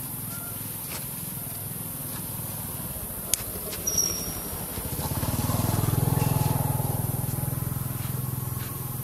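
Low engine hum of a passing vehicle, swelling from about five seconds in, loudest around six seconds, then fading near the end, over a steady low rumble. A sharp click and a brief high chirp come just before four seconds.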